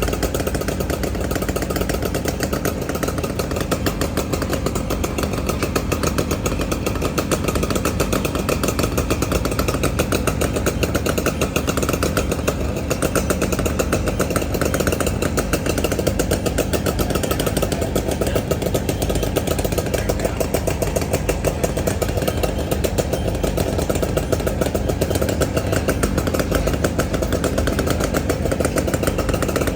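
An engine running steadily at one speed, a dense rapid pulsing that does not rev up or down.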